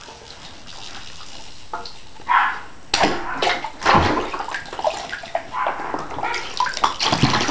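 Bathwater splashing and sloshing as a Yorkshire terrier scrambles through the tub after a ball. The splashing is irregular and starts about three seconds in.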